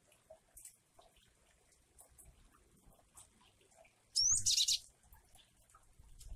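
A caged gelatik wingko (cinereous tit) gives one harsh call about four seconds in: a quick rising whistle that runs straight into a short rasping burst. Faint scattered ticks sound around it.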